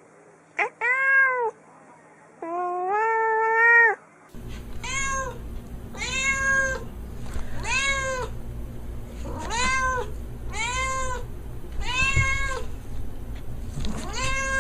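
Kittens meowing: two high meows, the second long and drawn out. After a cut, another kitten meows over and over, about once a second, over a low steady hum.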